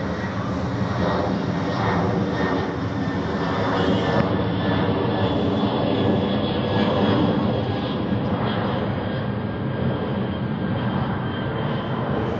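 Twin turbofan engines of an Airbus A330 airliner passing overhead: a steady jet rumble with faint high whining tones over it, a little louder in the middle.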